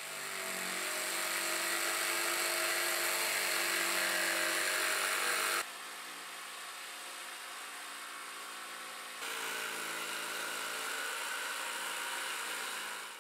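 Electric jigsaw cutting through a thin board: a steady, noisy motor whine. It drops suddenly to a quieter level about five and a half seconds in and comes back up a few seconds later.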